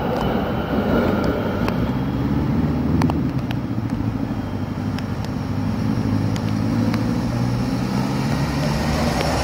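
Amsterdam tram passing and pulling away along street track, heard as a steady low motor hum and rumble with traffic noise, with a few sharp clicks about three seconds in.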